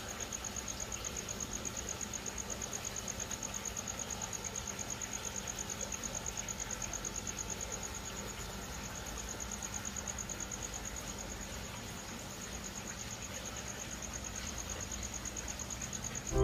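A cricket chirping in a steady, rapidly pulsing high trill.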